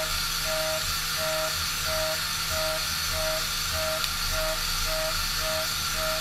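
An 8 mm end mill in a high-speed CNC milling machine cutting P20 mold steel at full 16 mm depth with a narrow width of cut. Its humming cutting tone pulses on and off about one and a half times a second as the cutter engages the steel, over background music.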